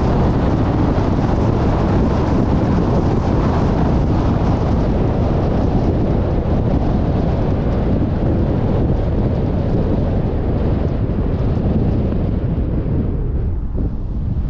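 Steady road and wind noise from a car driving at speed, with wind rushing over the microphone. The upper hiss thins out near the end.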